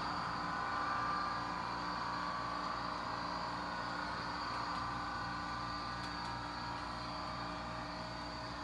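Rapido HO-scale Budd RDC model's DCC sound decoder playing its diesel engine running sound: a steady mechanical drone with a regular low throb.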